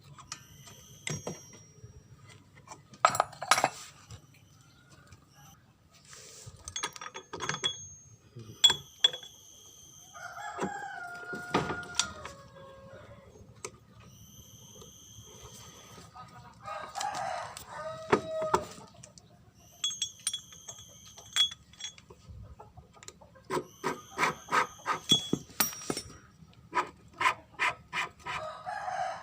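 A rooster crowing once, about ten seconds in, with high chirps of birds around it. Scattered sharp clicks and knocks run throughout, with quick runs of taps near the end.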